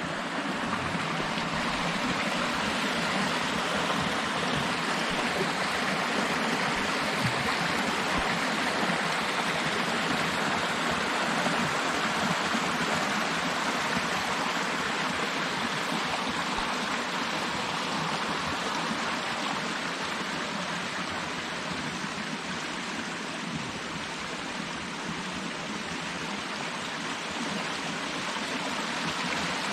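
Swollen forest stream in spate rushing over stones and around the broken stone walls of an old weir: a steady, even rush of water that eases slightly near the end.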